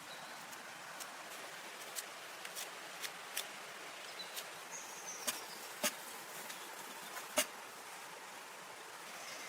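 A steady outdoor hiss with scattered sharp clicks and taps, about one every second, loudest near the end.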